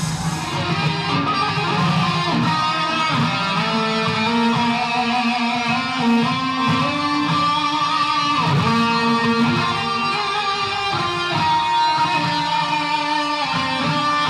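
Explorer-style electric guitar played solo: a melodic line of long held notes with occasional pitch bends. It takes over just after the start, as brighter backing music cuts off.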